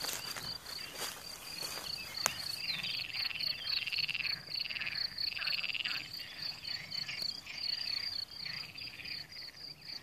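Crickets chirping steadily outdoors, about four to five chirps a second. From about three seconds in another animal calls over them again and again, short warbling calls repeated every second or so. A couple of sharp clicks come in the first two seconds.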